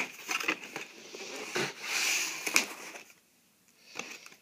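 Hands handling a cardboard Lego City advent calendar box: a sharp tap at the start, then scraping and rustling of fingers over the cardboard with a couple of short knocks, falling nearly silent for a moment about three seconds in.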